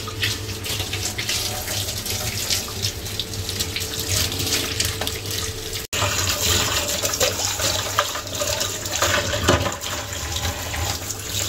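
Tap water running into a stainless steel sink while dishes are washed by hand in soapy water, with frequent small knocks and clinks of a plastic cup and utensils against the sink. The sound cuts out for an instant about halfway through, then carries on.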